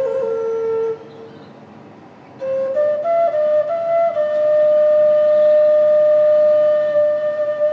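Native American flute playing a slow melody: a note ends about a second in, then after a short pause a few short notes step up and down before settling into one long held note.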